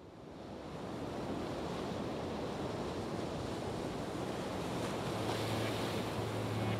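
A steady rushing noise like wind or surf, fading in over the first second, with a low hum coming in about five seconds in.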